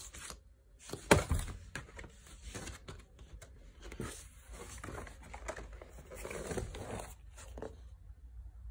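Glossy printed paper lyric sheets and card sleeves being handled: irregular rustling, sliding and crinkling, with one sharp knock about a second in.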